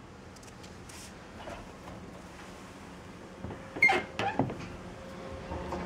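A quick cluster of sharp knocks and clatter about four seconds in, over a faint steady background hum.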